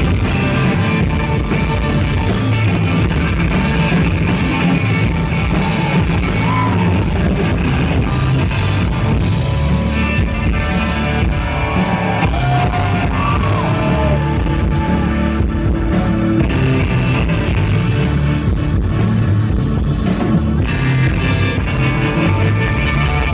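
Live psychedelic rock band playing loudly, with electric guitar and drums and some singing, recorded from the audience.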